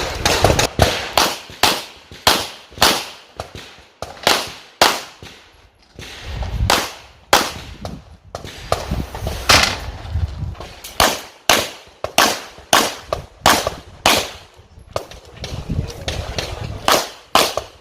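Handgun shots fired in quick strings, about two to three a second, each crack followed by a short echo, with a brief lull about six seconds in; typical of practical-shooting (IPSC) pistol fire.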